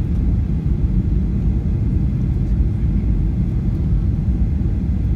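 Steady low rumble of engine and airflow noise inside the cabin of a Boeing 737-800 descending on approach.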